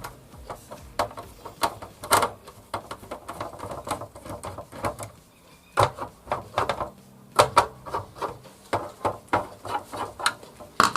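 Irregular sharp clicks and knocks of a mixer grinder's plastic housing being handled while its screws are undone.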